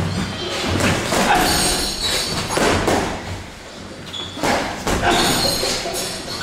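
Boxing gloves thudding as punches land during sparring: several dull blows, unevenly spaced.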